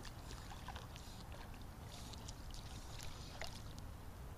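Light splashing and lapping of shallow water, with scattered faint ticks and small splashes, over a steady low rumble.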